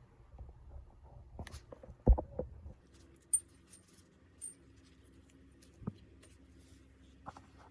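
Metal tools and bicycle bottom-bracket parts clinking and knocking during hands-on repair: a run of sharp clicks with one louder knock about two seconds in, and a few brief high metallic rings.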